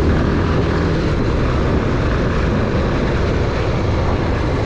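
Bajaj Pulsar 220F motorcycle on the move: its single-cylinder engine running steadily under a constant rush of wind and road noise.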